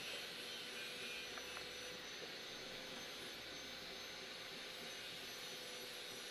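Steady background hiss with a faint steady hum; no distinct events.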